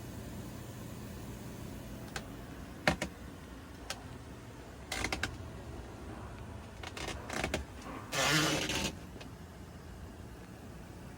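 Indoor air handler of a heat pump system running with a steady low hum. Over it come a sharp click about three seconds in, a few knocks and rattles, and a short rush of noise lasting under a second near the end.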